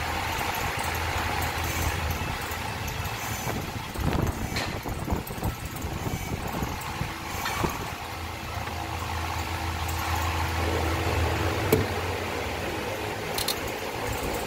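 A steady low hum, with clicks and knocks from hand tools working on wire ends and a plastic connector, and a crimping tool closing on the connector near the end. The hum drops out for a few seconds in the middle and again near the end.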